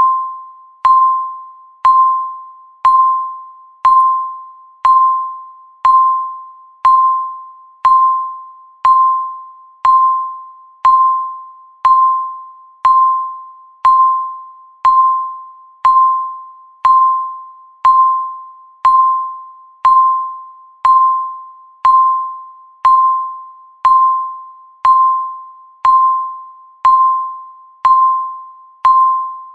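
Countdown timer's electronic tick: a short, clear ping once every second, each dying away before the next.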